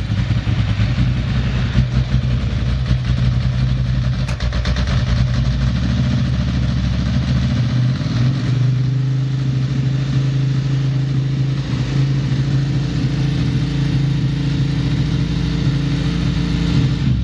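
Ducati M900 Monster's air-cooled 900 cc L-twin idling steadily just after an electric start, a stable idle with no abnormal noise, as the seller states; its note shifts slightly about eight seconds in.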